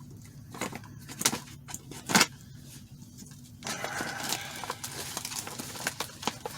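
Plastic MRE meal bag being opened and its packaged contents handled: a few separate sharp clicks and snaps, then from about halfway in a continuous crinkling and rustling of plastic packaging. A faint steady low hum runs underneath.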